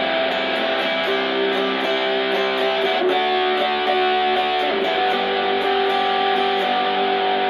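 Electric guitar played through a Positive Grid Spark GO mini amp on its distorted 'solo' preset: loud held notes that change a few times and sustain for seconds each.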